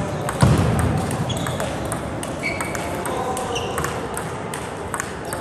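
Table tennis balls clicking off bats and tables in an irregular patter from several tables, with a louder dull thump about half a second in.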